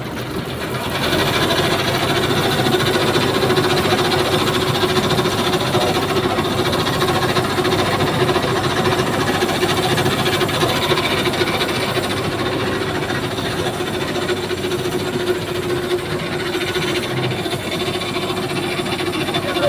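Heavy crane tow truck's engine running during a recovery lift, getting louder about a second in and holding steady, with a steady whine over the engine noise.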